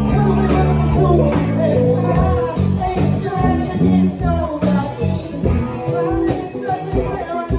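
A band playing a rock-blues groove: guitar, bass and drums, with a voice singing over them.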